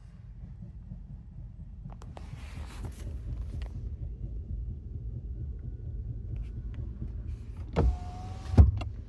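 Chevrolet Cruze steering noise: a low rumble inside the car, then two sharp knocks a little under a second apart near the end, with a short squeal between them.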